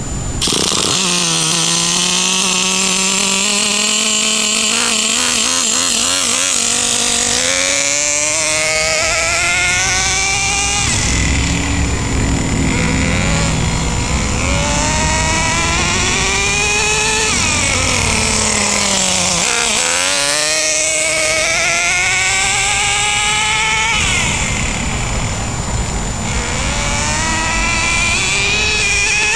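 Traxxas Jato 2.5's small two-stroke nitro engine catching about half a second in and then running hard, its high whine climbing and dropping over and over as the truck accelerates and slows.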